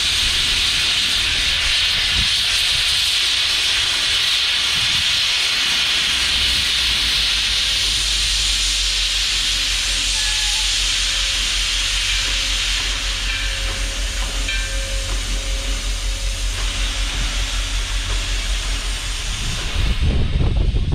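Steam locomotive hissing loudly and steadily as steam blows out low along its side. A regular low pulsing, a few beats a second, joins in the second half, and a louder low rumble comes near the end.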